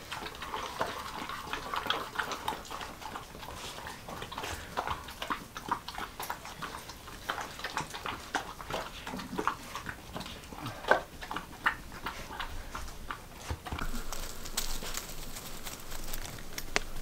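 Dogs making small sounds amid many short clicks and scuffs, with one sharper knock about eleven seconds in.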